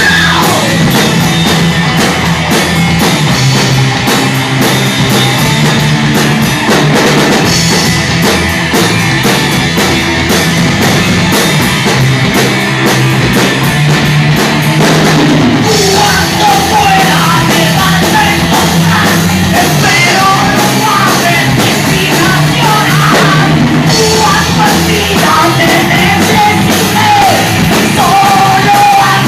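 Live rock band playing loud and without a break: drum kit, electric guitars and bass. About halfway through, a wavering melodic line rises above the band.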